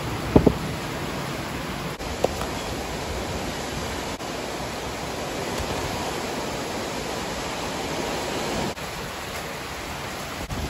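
Heavy rain falling as a steady, even hiss. There is one short knock about half a second in.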